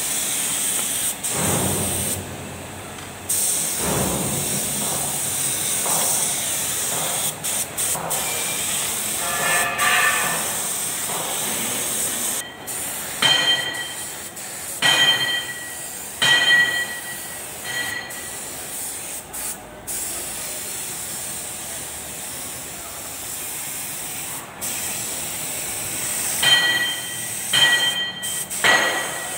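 Compressed-air spray gun hissing as paint is sprayed, the hiss cutting out briefly several times as the trigger is let go. Several short, shrill tones sound around the middle and again near the end.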